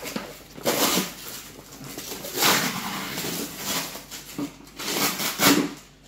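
A cardboard shipping box being opened by hand: flaps pulled back and packing inside rustled and scraped, in three noisy bursts, about a second in, around two and a half seconds, and near the end.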